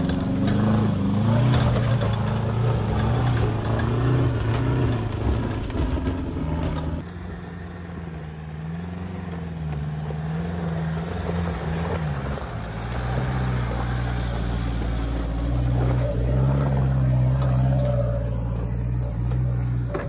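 4x4 pickup engine revving under load as it crawls up a steep dirt track, the engine note rising and falling with the throttle. The sound changes abruptly and drops in level about seven seconds in.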